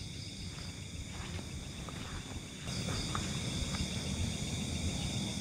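Steady chirring of crickets and other night insects over a low rumble of background noise, with a few faint short high chirps; everything gets louder a little past halfway through.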